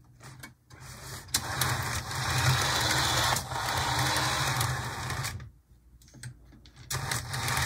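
Rivarossi HO-scale GE U25C model locomotive running on the track, its motor and drive shaft giving a steady mechanical whir that the owner calls a little noisy. It starts haltingly, which he puts down to some stiction from sitting unused. About three-quarters through it stops for a second or so and then runs again in the other direction.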